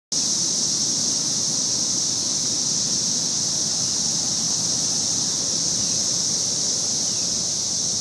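A chorus of cicadas singing as one loud, steady, high-pitched drone with no breaks.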